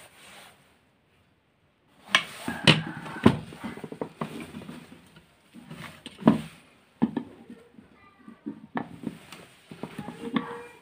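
Sharp clicks and knocks of a metal hand tool against the plastic end housing of a vacuum cleaner motor, as the lock over its new 608 bearing is pushed into place. About a second of dead silence, then irregular taps.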